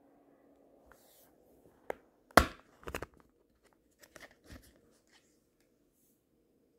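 A clear plastic pen-light case snapped open by hand: a few sharp plastic clicks, the loudest about two and a half seconds in, followed by lighter knocks and rattles as the pen light is lifted out.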